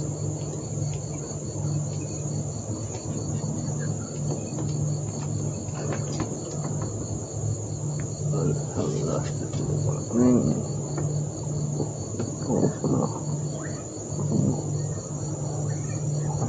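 Evening insect chorus: a steady, evenly repeating high chirping, with a low pulsing hum beneath it.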